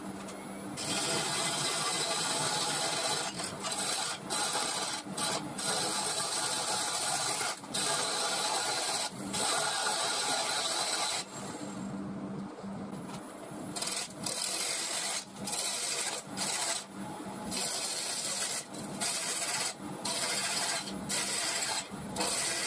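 Gouge cutting the outside of a spinning mulberry bowl blank on a wood lathe: a steady shearing hiss of wood being cut, broken many times by short gaps as the tool comes off the wood. About eleven seconds in there is a longer break where only the lathe's motor hum is left.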